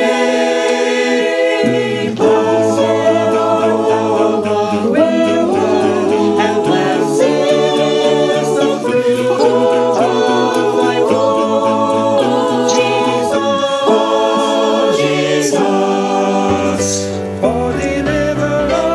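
Choir singing a cappella in slow, held chords, with lower voices joining about two seconds in.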